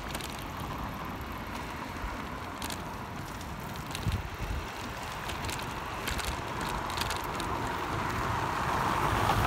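Bicycle rolling over wet pavement: a steady rush of tyre noise and wind on the microphone, with a few short rattles and knocks from the bike over bumps, growing louder near the end.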